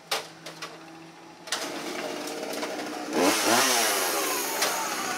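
A few sharp knocks, then a two-stroke chainsaw running from about a second and a half in. At about three seconds it revs up loud, its pitch swinging down and back up.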